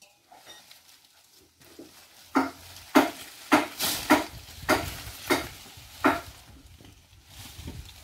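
Rustling and snapping of leafy rambutan branches as fruit clusters are pulled off by hand. It comes as about seven sharp crackles, roughly half a second apart, starting a couple of seconds in.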